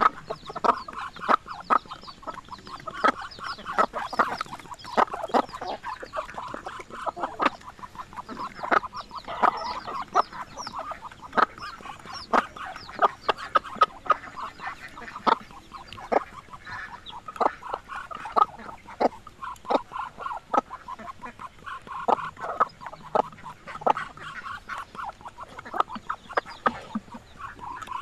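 Free-range chickens clucking: a long, uneven run of short, sharp clucks, several a second, over a continuous chatter of softer calls from the flock.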